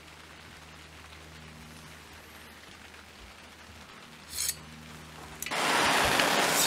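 A handheld propane torch starts with a sudden loud, steady hiss near the end, after a brief sharp noise a little past halfway and faint background hiss before it.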